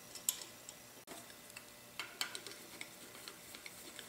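Faint metal clicks and taps as a steel spanner-wrench plate is set over the motor's rotor retaining nut and slotted screws are fitted through it with a screwdriver, with a run of small ticks in the second half.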